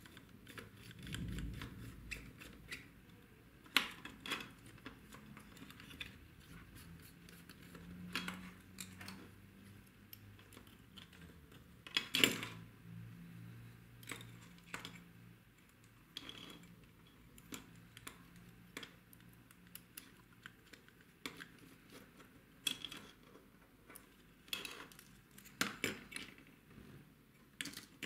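Irregular small clicks, taps and clinks of a hex driver, tiny metal screws and chassis parts being handled during hand assembly of a micro RC drift car. The loudest click comes about twelve seconds in.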